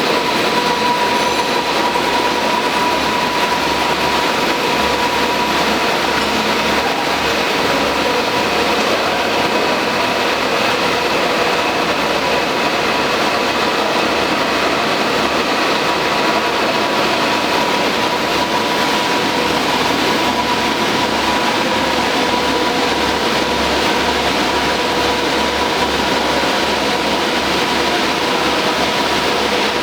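K 503 paper reel slitting machine running steadily: a loud, even mechanical whir with a constant whine.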